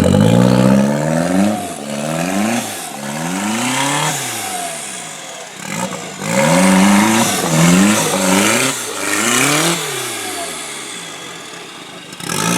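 Modified 4x4 off-road competition truck's engine revving hard, its pitch climbing and dropping again and again as the throttle is blipped, with a short lull about halfway through.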